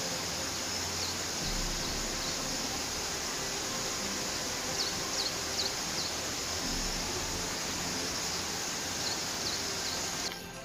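Steady, high insect chorus over a wash of open-air noise, with groups of two or three short descending bird chirps about half a second, five seconds and nine seconds in. Everything cuts off suddenly just before the end.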